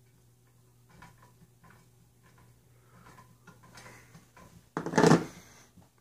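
Ceiling fan rocking and knocking in a loose J-hook and grommet mount as its DC motor struggles on high speed: light scattered clicks and knocks that build up, then a louder clattering clunk near the end.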